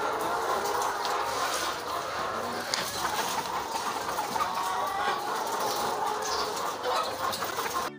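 A large flock of caged brown laying hens clucking and calling all at once, a steady, dense chatter of many overlapping voices.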